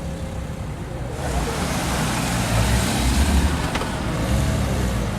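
A car's engine and exhaust as it drives off, growing louder from about a second in and loudest around the middle.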